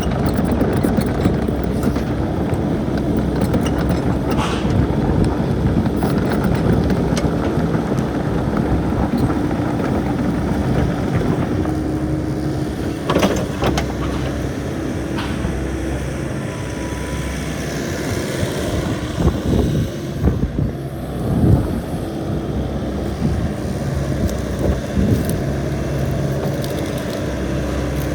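Diesel engine of a Volvo ECR88D compact tracked excavator running steadily, with a few knocks about halfway through and again near two-thirds of the way.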